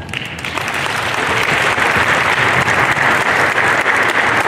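Audience applauding; the clapping swells over the first second and then holds steady.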